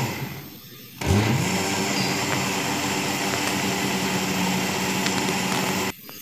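Electric mixer grinder grinding soaked urad dal into idli batter. The motor drops away at the start, starts again about a second in with a rising whine, runs steadily, then cuts off suddenly just before the end.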